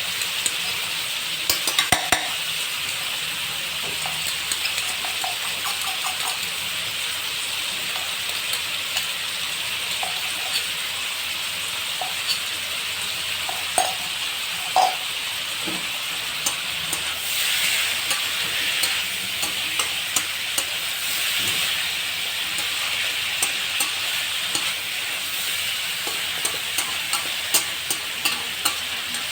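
Chicken frying in a pan with ginger-garlic-chilli paste, sizzling steadily while being stirred. A spoon knocks and scrapes against the pan now and then.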